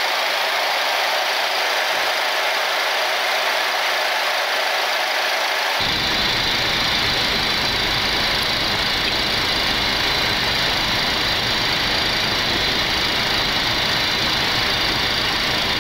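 Steady rushing in-flight noise on a Boeing 737 flight deck. About six seconds in it changes abruptly and gains a deep rumble.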